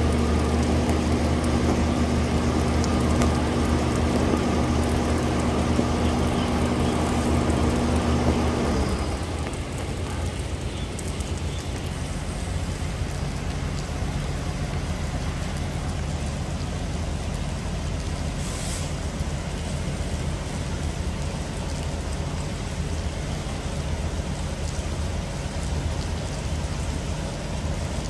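Hitachi Sumitomo SCX2800-2 crawler crane's diesel engine running steadily. A pitched drone stops about nine seconds in, leaving a quieter, steady low rumble.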